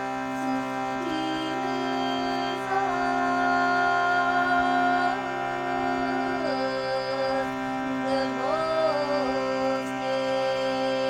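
Music: a steady drone with a slow melody of long held notes that slide from one pitch to the next.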